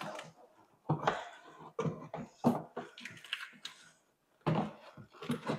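A metal mounting plate and heavy battery cables knocking and clattering against a golf cart's plastic body as they are test-fitted into place: a string of short, irregular knocks.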